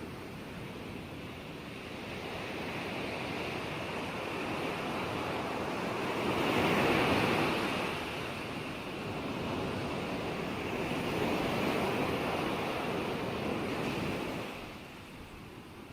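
Ocean surf: waves breaking and washing back in a continuous rush, swelling loudest about seven seconds in and again around eleven seconds, then easing off near the end.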